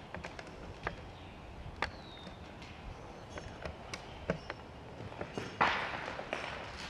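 Footsteps on old wooden floorboards strewn with broken glass and debris: scattered ticks and crunches as the walker moves, with a louder gritty scuff about five and a half seconds in.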